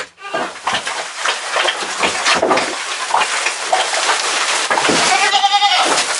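Goats bleating in a barn, with one clear drawn-out bleat about five seconds in, over a continuous rustling noise.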